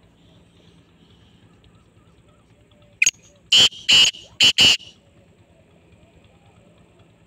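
Black francolin calling once, about three seconds in: a short sharp note, then four loud, harsh notes in quick succession.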